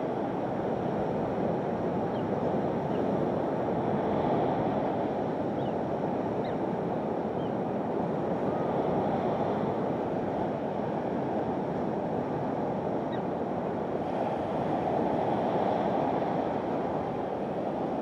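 Surf washing onto a rocky shore: a steady rush of water that swells and eases every few seconds.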